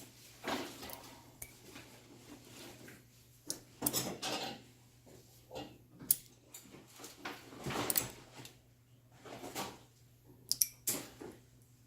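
Tools and small hard parts clinking and clattering as they are handled on a workbench: irregular sharp knocks and clicks with short rustling sounds between them, over a faint steady hum.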